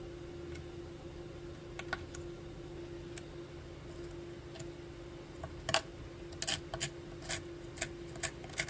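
A small hand tool scraping across the wood-burned surface of a red oak plaque, taking off a tiny thin layer of scorched wood: light scratches at first, then sharper, more frequent scraping strokes in the second half. A steady faint hum sits underneath.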